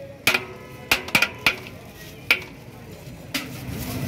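A metal ladle clinking against the side of a large metal biryani pot (degh) as rice is scooped out, about six sharp ringing knocks, then a longer scrape near the end.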